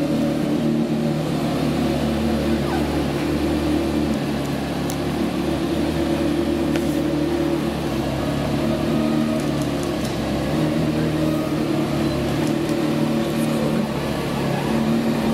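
Porsche Carrera GT's 5.7-litre V10 idling steadily, with an even pitch and no revving, as the car creeps along at walking pace.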